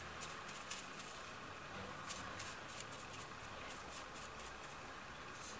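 Faint crinkling rustle of thin silver metal leaf as a soft brush dabs and rubs it down onto a molded piece, with many small light ticks.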